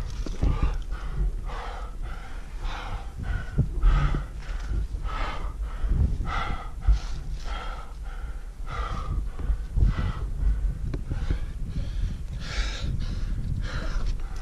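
A climber's heavy, rhythmic breathing, more than one quick breath a second, as he pulls up steep rock at about 6000 m under a heavy pack. He is panting hard from exertion in the thin air. A low rumble and a few short knocks sit underneath.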